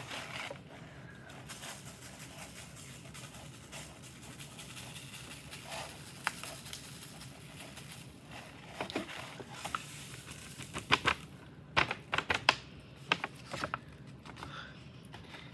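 Glitter shaken from a plastic shaker bottle onto glue-lined paper in a cardboard box: a steady soft hiss of falling grains for several seconds. Near the end come a handful of sharp taps and clicks as the paper is lifted and tapped to knock the excess glitter off.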